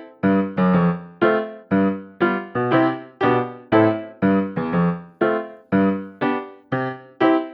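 Background music: piano notes and chords struck about twice a second, each dying away before the next.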